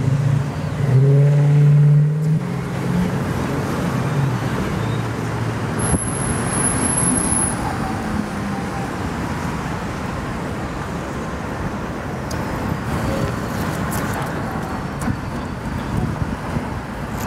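Street traffic noise from passing cars, steady throughout, with a louder low drone from a vehicle from about half a second to three seconds in.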